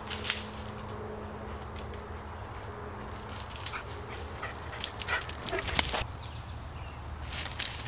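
Black Labrador running over dry leaf litter and twigs: short crackling footfalls, densest in the middle stretch and again near the end.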